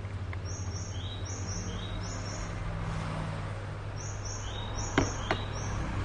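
Bird chirping in quick runs of short, high notes over a steady low hum, with two sharp clicks about five seconds in.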